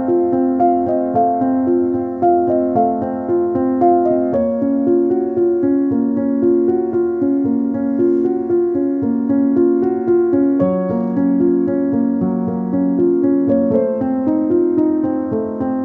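Background music: a keyboard, piano-like in sound, playing a flowing run of notes at a steady pace.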